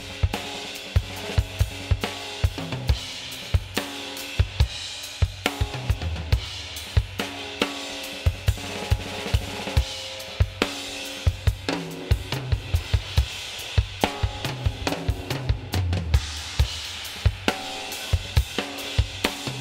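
A recorded band mix led by a drum kit, with kick, snare, hi-hat and cymbals playing a busy groove over bass and other pitched instruments. The drums run through the Tone Projects Unisum compressor on the drum bus, set for heavy, extreme compression.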